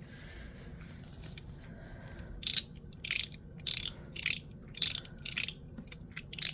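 Ultem (PEI plastic) fidget slider being slid back and forth, its detents clicking in quick bursts about twice a second from about two seconds in.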